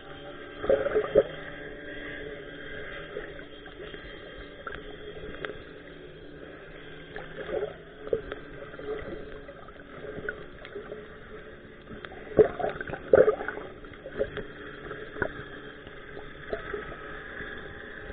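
Muffled underwater sound from a submerged camera: a steady hum with a few held tones, broken by knocks and bubbly gurgles, the loudest cluster about a second in and another two-thirds of the way through.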